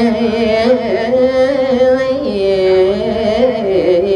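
A man singing a Balinese geguritan verse in long held, ornamented notes with a wavering pitch, the melody stepping down about halfway through and again near the end.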